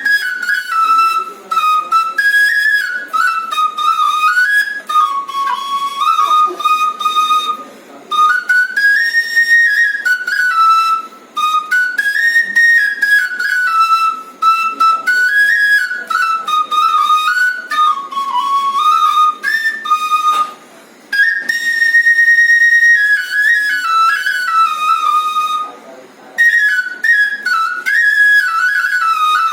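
Solo bansuri (Indian bamboo flute) playing a winding, high melody on a single line, in phrases broken by short breath pauses, with one long held high note a little past the middle.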